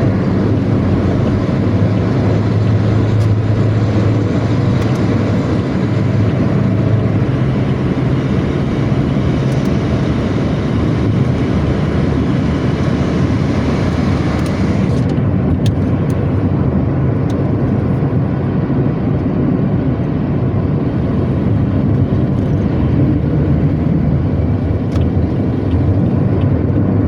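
A Pantura intercity bus's diesel engine running at road speed through a growling 'ngorok' exhaust: a loud, steady low drone over road and traffic noise. The hiss above it drops away suddenly about halfway through.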